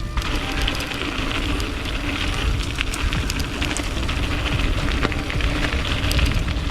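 Mountain bike rolling down a dirt trail: tyres crackling and crunching over the surface, with wind rumbling on the camera microphone.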